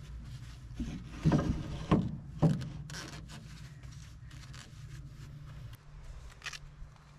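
A truck's fifth-wheel coupling release handle being pulled to free the locking jaws: metal scraping and clunking. The three loudest strokes come between about one and two and a half seconds in, followed by lighter clicks, over a steady low hum.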